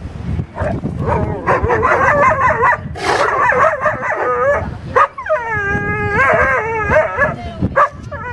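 Dogs whining and howling at a sea lion in high cries that waver up and down in pitch, broken by a few sharp barks.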